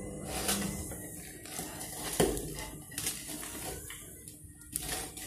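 Steel spoon scraping and clinking against a steel bowl as thick mango pickle is stirred, with a few sharp clinks.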